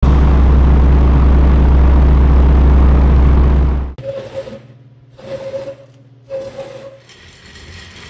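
A loud, steady low engine rumble that cuts off abruptly about four seconds in, followed by three even beeps about a second apart.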